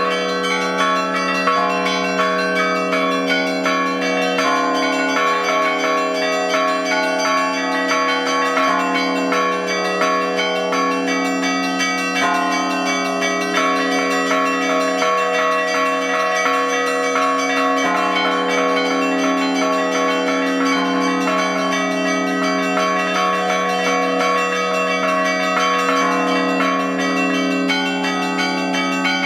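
Russian Orthodox church bells rung all together by one ringer: a dense, continuous peal in which small high bells are struck rapidly over the sustained hum of the larger bells.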